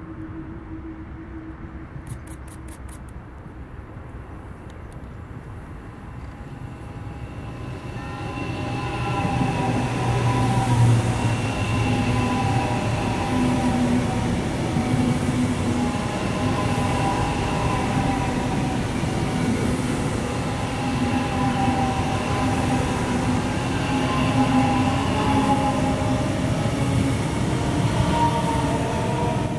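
DB Class 403 ICE 3 electric high-speed train approaching and then passing close by. About eight seconds in, the sound swells to a loud, sustained rush of wheels on rail with steady whining tones from its electric traction equipment, which carries on as the long train goes past.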